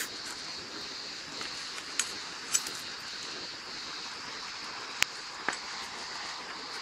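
Wood fire with stones heating in it, stirred with a small shovel: four sharp cracks and knocks, the loudest a little before the end, over a steady high-pitched hiss.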